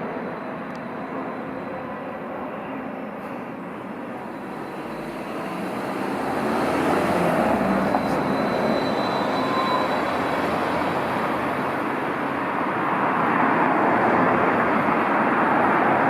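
Road traffic passing: a steady rush of tyres and engines that swells as vehicles go by, loudest about six seconds in and again near the end.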